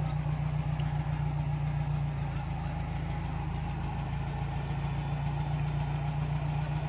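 GAZ-69's four-cylinder side-valve engine idling steadily while the jeep sits stalled in deep water up to its headlights, still running rather than drowned out. Its level eases slightly about two seconds in.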